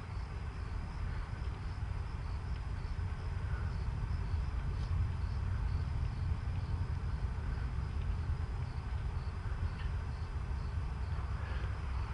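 Outdoor ambience of a faint, steady pulsing insect trill, typical of crickets, over a low wind rumble on the microphone.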